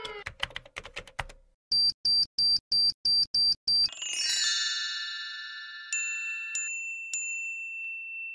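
Cartoon sound effects: a patter of computer keyboard typing clicks, then eight short electronic beeps in a quick even run. These are followed by a sparkling chime flourish of ringing tones and three bright pings.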